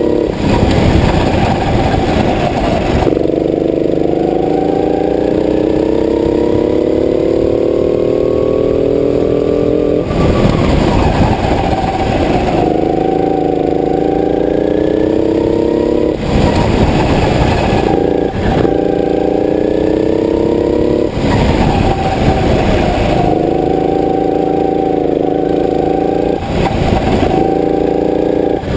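Go-kart engine heard from on board at full throttle, its pitch climbing steadily for several seconds at a time as the kart speeds up. About five times it breaks into a short, rough, noisy stretch before the climb starts again.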